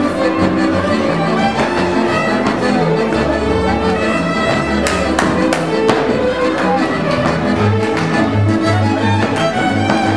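Transylvanian Hungarian village string band playing a dance tune: several fiddles bow the melody together in unison over a pulsing double bass, with sharp rhythmic bow accents.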